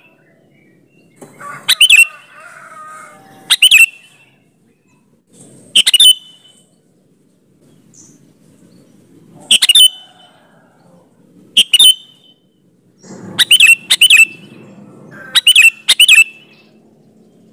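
Sooty-headed bulbul (kutilang) calling: short, loud, sharp notes every couple of seconds, some single and some in quick pairs, with a run of four close together near the end.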